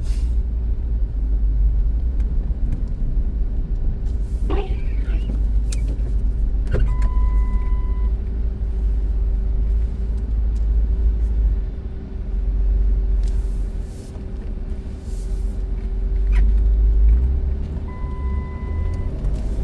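Low rumble of a 2005 Dodge Caravan driving, heard from inside the cabin, with a steady hum under it. A few knocks sound, and a one-second beep comes twice, about eleven seconds apart.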